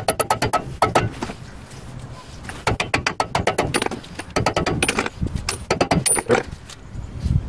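Several quick runs of light metallic clicks and taps as the wheel hub's grease cap is fitted back on over the spindle nut.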